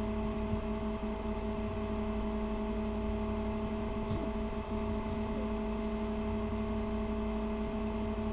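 Steady electrical hum made of several fixed tones over a low rumble, with one faint click about four seconds in.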